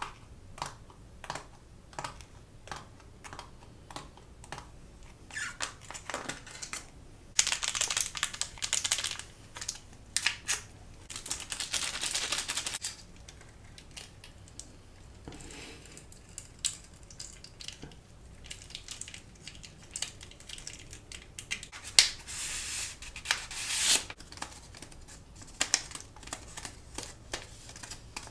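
Takeout packaging and containers being handled: many separate clicks and taps, with longer crinkling rustles from about seven to thirteen seconds in and again around twenty-two to twenty-four seconds.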